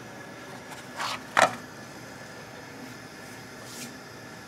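Handling of flatbreads in non-stick frying pans on a gas stove: a brief swish about a second in, then a sharp clack, and a faint swish near the end, over a steady faint hiss.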